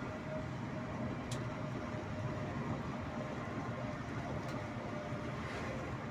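Steady engine and road rumble of a sleeper coach bus driving along a highway, heard inside the cab, with a faint steady whine and two small high ticks.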